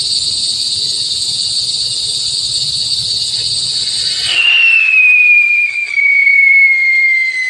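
Tube-type whistle firework (a 'dugong') hissing steadily as it pours out smoke, then about four seconds in it breaks into a loud whistle whose pitch slowly falls.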